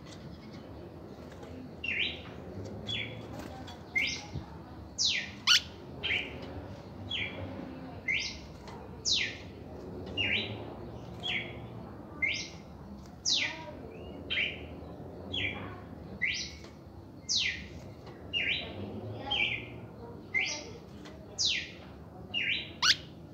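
Red-crested cardinal singing a long run of short whistled notes, about one a second from about two seconds in: steep falling notes alternate with shorter level ones. Two sharp clicks stand out, about five seconds in and near the end.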